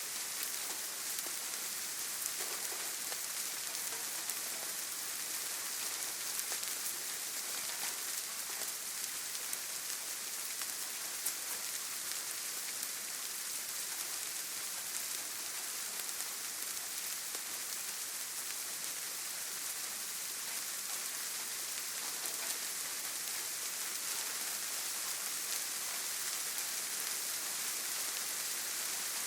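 Steady rain falling: an even hiss with many small drop ticks, holding the same level throughout.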